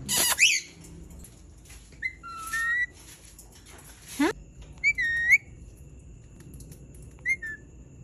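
Indian ringneck parakeet calling: a sharp, high screech right at the start, then a few short whistled calls spaced out over the next several seconds.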